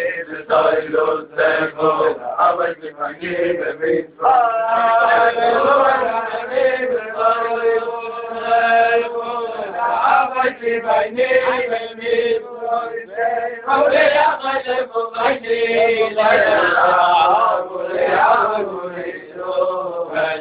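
A group of Hasidic men singing a niggun together, a chant-like tune that carries on without a break.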